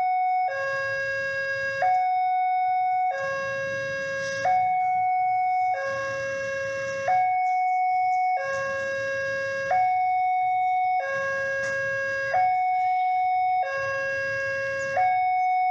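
Railway level-crossing warning alarm sounding a two-tone electronic signal, a lower and a higher tone alternating evenly about every 1.3 seconds. It signals that the crossing is closed for a train about to depart.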